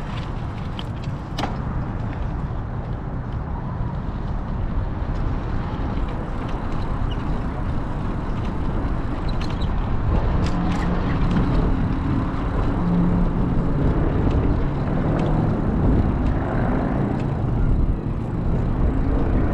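Wind buffeting the microphone as a steady low rumble, with a faint hum joining it about halfway through.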